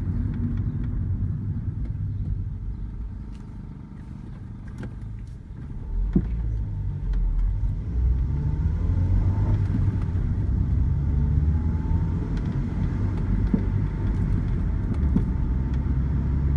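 A 2000 Honda Civic's engine and road noise inside the cabin, easing down to a quiet moment as the car stops, then one sharp knock about six seconds in and the car pulling away again, with the engine rising in pitch as it speeds up.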